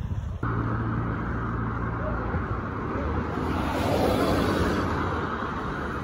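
Road traffic: a steady engine hum, with a car passing that swells to its loudest about four seconds in and then fades.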